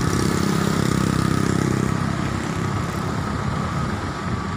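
Hino FG 235 Ti crane truck's diesel engine running steadily while it drives the HMF crane's hydraulics as the boom is worked, a little heavier for the first two seconds, with a steady high whine over it.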